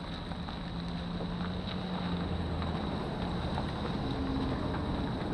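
Bass boat's outboard motor running at a steady pitch, with wind on the microphone.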